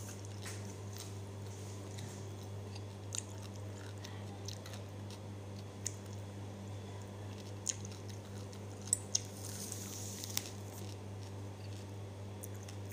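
A person biting and chewing raw cucumber slices, with short crisp crunches scattered throughout; the sharpest crunches come about two-thirds of the way in. A steady low hum runs underneath.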